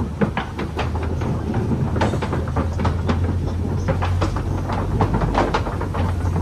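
Open-sided safari ride truck in motion: a steady low engine hum under frequent rattles and knocks from the vehicle as it jolts along the track.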